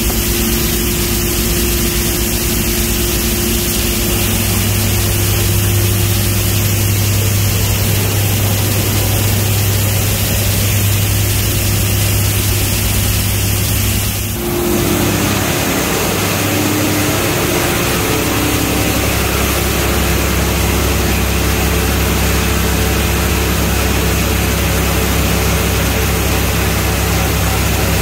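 Recycling-plant processing machinery and conveyor running: a loud, steady industrial drone with a low hum. About halfway through the sound changes abruptly to a different steady drone.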